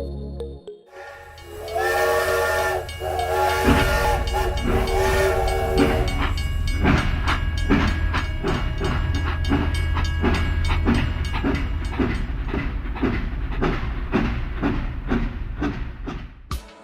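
A whistle sounding several notes at once, held for about four seconds, then a steady rhythmic chugging of about three strokes a second that fades near the end.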